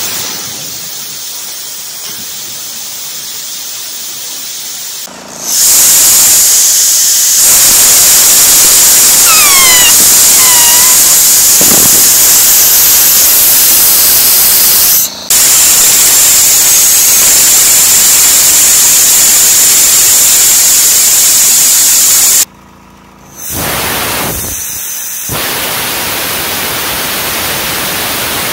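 Compressed air rushing through the nozzle of a homemade graphite-electrode arcjet thruster on a test firing: a steady hiss that jumps much louder about five seconds in, cuts out for a moment midway, drops off near the end and comes back. Two short falling squeals sound during the loud stretch.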